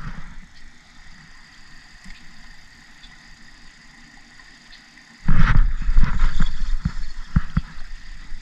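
Faint steady hiss, then from about five seconds in a loud low rumble with irregular knocks and crackles as the camera's microphone is buffeted and handled.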